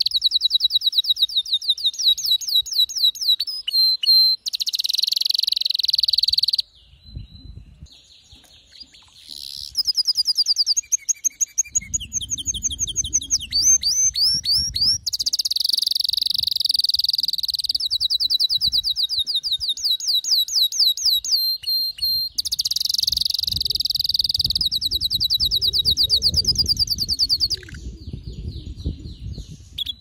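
Male canary singing loud, fast trills and rolls in long phrases, switching between a steady high buzzing roll and rapid runs of repeated notes, with a short quieter pause about seven seconds in.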